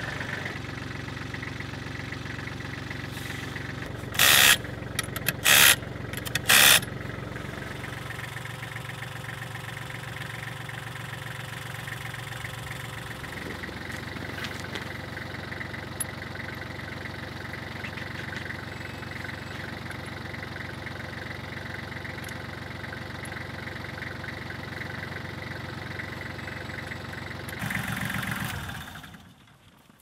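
Kubota tractor's diesel engine idling steadily. About four seconds in there are three short, loud bursts of noise about a second apart. The engine note shifts about halfway through and fades out near the end.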